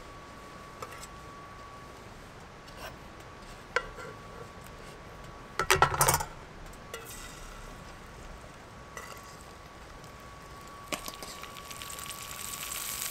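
Metal clinks and taps of a knife and small metal pot being handled while bacon is cut and moved, with a loud run of clinks about six seconds in. Near the end the bacon starts sizzling as it goes into the hot pot on the wood-burning camp stove, the frying growing steadily louder.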